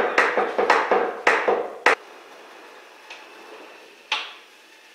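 A quick run of sharp knocks of a tool on metal, about three a second, that stops after about two seconds, then a single knock about four seconds in, from hand-tool work on an outboard motor's mounting.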